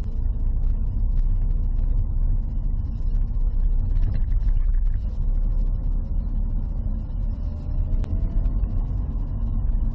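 Dacia Sandero driving at low speed, heard from inside the cabin: a steady low engine and road rumble, with a faint engine note that rises slowly from about halfway through.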